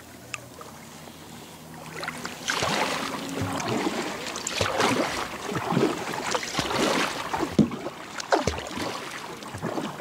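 Kayak paddle strokes dipping and splashing in calm river water, starting about two seconds in and repeating roughly once a second.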